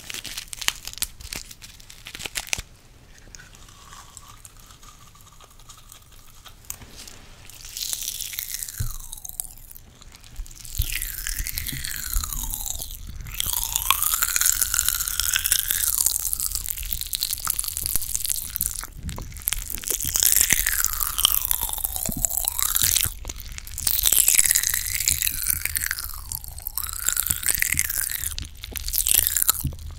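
Fizzy popping candy crackling and fizzing in the mouth close to the microphone, the hiss rising and falling as the mouth moves. It is quieter with a few clicks at first and grows loud from about eight seconds in.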